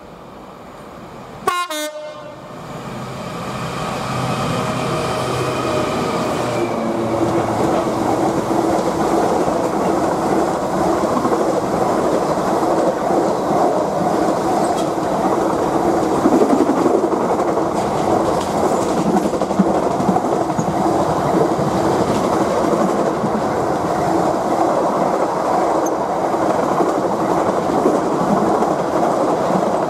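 Class 66 diesel freight locomotive gives a short horn blast about a second and a half in, then passes close by. A long train of covered bogie wagons follows, rolling past at speed with a steady wheel rumble and clickety-clack over the rail joints.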